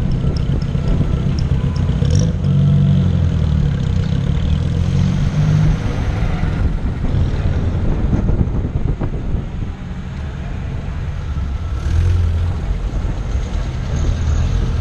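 Vintage cars driving slowly past one after another, their engines running low and loud. The engine note swells as each car goes by, strongest about two to six seconds in and again about twelve seconds in.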